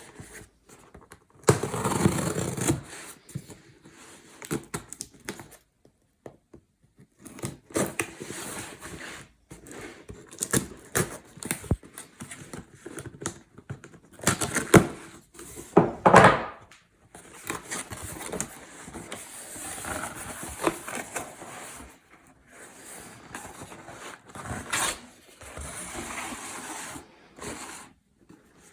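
Unboxing: a cardboard parcel and its packaging being opened and handled, with tearing, rustling and scraping and many sharp clicks and knocks at an uneven pace.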